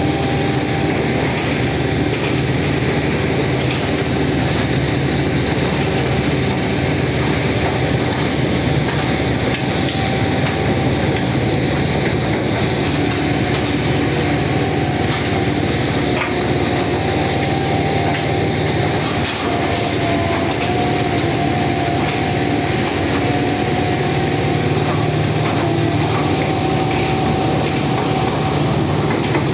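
Track-laying machine running steadily, its diesel engine droning with a steady whine over it and a few scattered metallic knocks.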